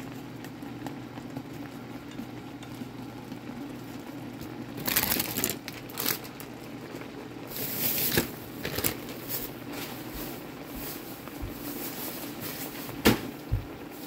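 Instant ramen broth simmering in a cast-iron skillet, a steady low bubbling hiss broken by irregular bursts of crackling and popping from about five seconds in, with two sharp clicks near the end.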